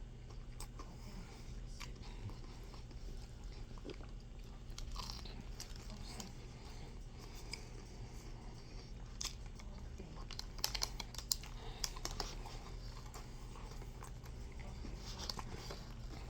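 Someone chewing and biting crunchy food close to the microphone, most likely KFC fried chicken, with short crisp crunches that come thickest about ten to twelve seconds in. A steady low hum runs underneath.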